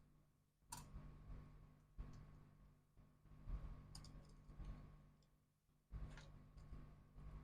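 Near-quiet bench work: about three faint, sharp clicks and taps from small tools and laptop parts being handled during disassembly, over a faint steady hum.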